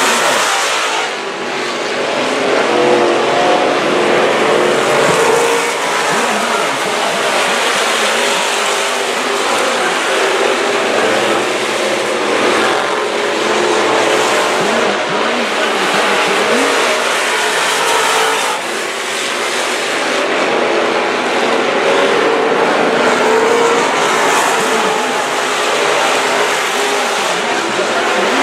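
A pack of hobby-class dirt track race cars running laps around a dirt oval, several engines sounding at once, each rising and falling in pitch as the cars go through the turns and down the straights. The level stays loud, with brief dips about a second in and near the two-thirds mark.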